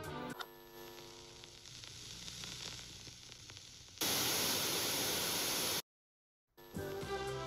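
Music breaks off, leaving a fading ring over a low hiss. About four seconds in comes a loud burst of static noise, lasting nearly two seconds, which cuts off abruptly into silence before music starts again near the end.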